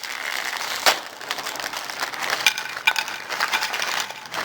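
Crinkling and crackling of plastic food packaging being handled, as a string of irregular small clicks with one sharper crack about a second in.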